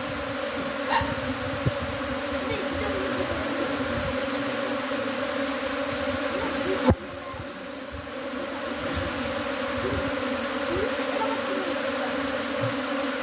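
Swarming honeybees buzzing: a dense, steady hum of many bees in flight. One sharp knock comes about seven seconds in.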